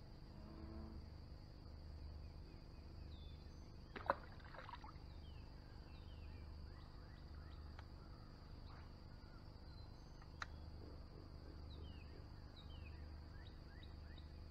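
Faint swamp ambience: scattered short, falling bird chirps over a steady low hum and a thin high steady tone. There is a sharp click about four seconds in and a smaller one about ten seconds in.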